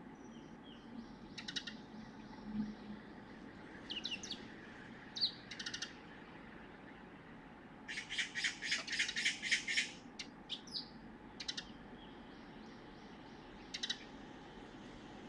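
Magpie giving its harsh chattering alarm call: short bursts scattered through, and a long rapid rattle of about ten notes about eight seconds in. It is a warning call at a stray cat.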